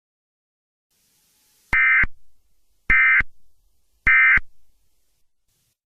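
Emergency Alert System end-of-message tones: three short bursts of warbling digital data (the SAME 'NNNN' code), a little over a second apart. They mark the end of the alert message.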